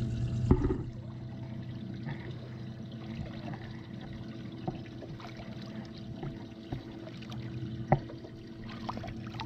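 Water sloshing and trickling around a redfish held in the water by hand during its release, with a sharp splash near the end as the fish kicks away. A steady low hum runs underneath.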